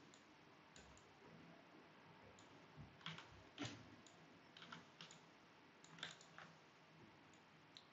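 Faint, scattered clicks of a computer mouse, some in quick pairs, over near-silent room tone.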